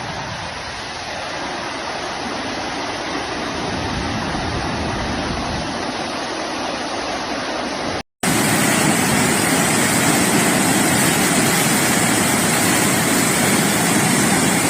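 Steady, loud rushing of fast-flowing floodwater. It cuts out for a moment about eight seconds in and comes back louder and brighter.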